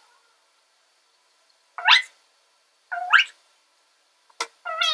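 A woman's voice making three short, high-pitched squeals about a second apart, each rising in pitch, with a short sharp sound just before the last one.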